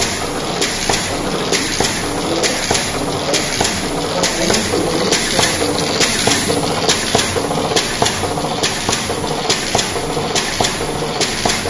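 Steady workshop background noise with a regular clicking, about two clicks a second, as of machinery running.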